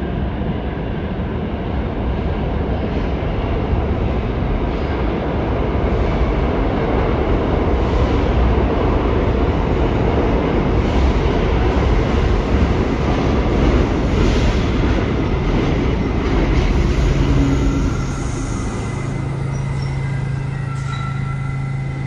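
R68-series New York City subway train pulling into an underground station: a rumble of steel wheels on rail that grows louder as it nears, with a few clacks, then eases off about 18 seconds in as it slows. A steady low hum remains as it comes to a stop.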